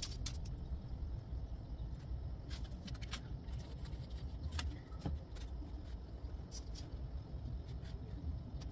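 Steady low background rumble with scattered light clicks and rustling as clothes and a drink bottle are handled.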